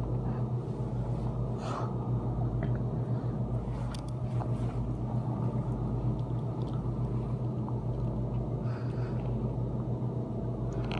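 Refrigeration compressor running with a steady, quiet low hum, a few faint clicks and rustles over it.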